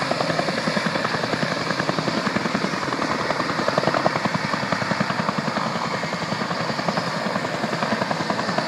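Helicopter rotor chop, a steady rapid beating, as the helicopter lifts off from a dusty landing area and climbs.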